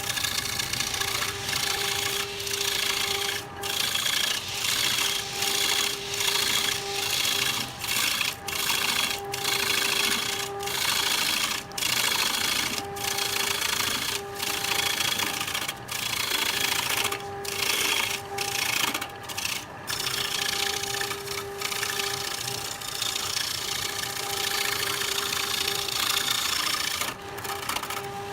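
Wood lathe running with a steady motor hum while a cutting tool scrapes the spinning wood, the cutting noise breaking off briefly every second or so.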